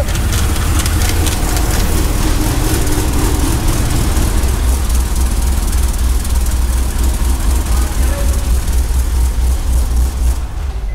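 Supercharged LS3 6.2-litre V8 running steadily at idle, with its accessory belt flapping and skipping: the power steering pump pulley is not pressed on far enough and sits out of line, so the belt rides the edge of it. The sound cuts off suddenly just before the end.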